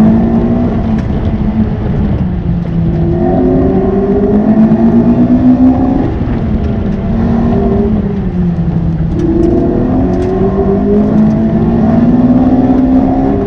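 Lotus Elise's four-cylinder engine heard from inside the cabin under hard driving on an autocross course. It revs up and down repeatedly, climbing in pitch for a few seconds under acceleration, then dropping as the driver lifts or brakes, over steady road and tyre noise.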